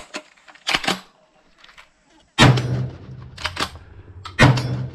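Two 12 gauge shotgun blasts from an Adler B230 straight-pull shotgun, about two seconds apart. Between them there is a quick double clack as the straight-pull action is cycled.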